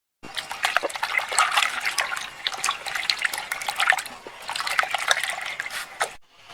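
Water splashing and trickling in uneven bursts, with many small drips and a short lull about four seconds in.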